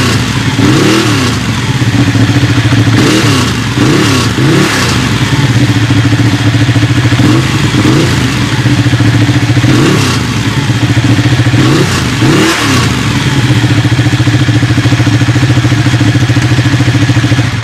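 Motorcycle engine with a wet clutch idling steadily and blipped on the throttle about nine times, each rev rising and falling back within about a second. It runs without the clutch-plate rattle of a dry clutch, as a wet clutch engine typically does.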